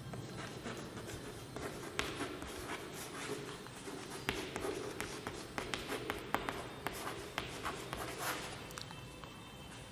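Chalk writing on a blackboard: a stream of quick taps and scratches as letters are written out, busiest in the second half.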